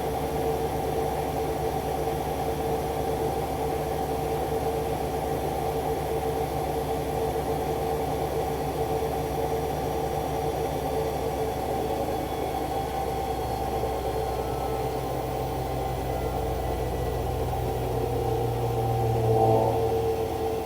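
Arçelik washing machine spinning its drum in an intermediate spin: a steady motor hum with a clear whine, the low tone shifting in the last several seconds and briefly growing louder near the end.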